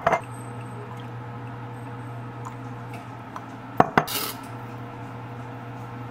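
A wooden spoon clattering against a glass bowl of chopped herbs: a few faint ticks, then one sharp knock about four seconds in with a brief scrape, over a steady low hum.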